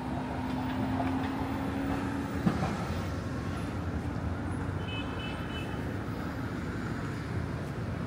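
City street traffic: a steady rumble of passing cars, with a steady hum that stops about two and a half seconds in and a single sharp click at the same moment.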